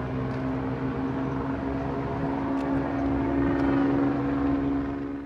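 A steady engine drone that swells a little about three to four seconds in, then eases off slightly.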